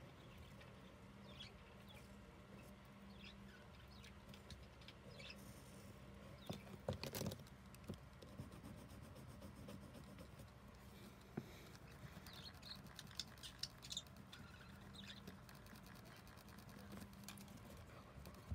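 Faint scratching and tapping of a crayon colouring on paper, over a steady low hum. A brief louder knock comes about seven seconds in.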